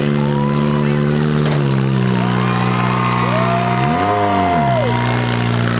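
Four-cylinder derby car engines running steadily, with one engine revving up and back down once about four seconds in. A long high held tone sounds above the engines over that rev.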